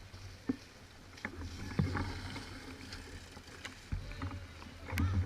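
Mountain bike riding over a rough off-road trail: a steady low rumble with scattered clicks and knocks of the bike rattling, the loudest knock near the end.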